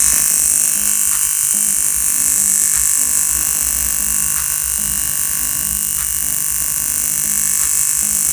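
Shrill, steady electric buzzing from the small DC motor of a homemade toy motorbike, with a regular low pulsing underneath.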